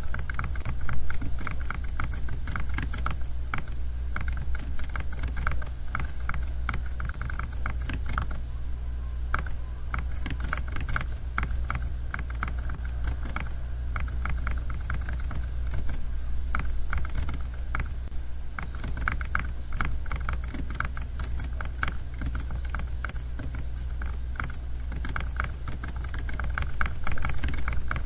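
Continuous typing on a computer keyboard: a dense, uneven run of key clicks, with a steady low hum underneath.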